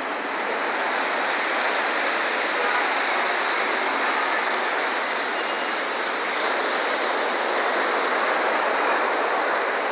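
Heavy ground-swell surf breaking over a harbour breakwater and surging through the harbour basin: a steady, continuous rush of churning water and spray.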